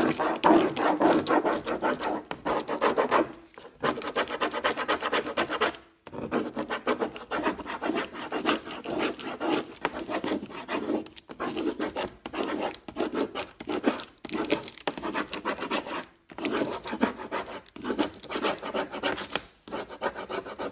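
A stick rubbed rapidly back and forth over a Prima rub-on transfer sheet, burnishing the design onto a painted fireplace screen. The strokes are scratchy and come in runs, with brief pauses every few seconds.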